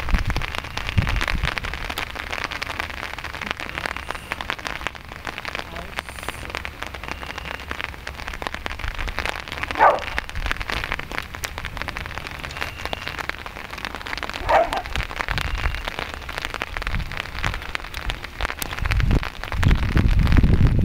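Steady rain pattering, a dense even crackle throughout. Two short high squeals break through near the middle, a few seconds apart, and a low rumble rises near the end.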